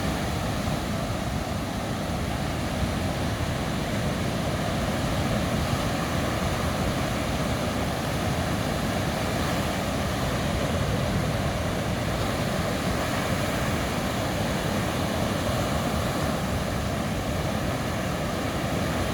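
Sea surf breaking and washing on a sandy beach: a continuous, steady rush of waves with no single break standing out.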